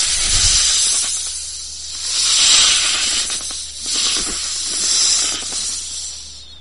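Viper hissing: about four long, breathy hisses, each swelling and fading, the last dying away near the end.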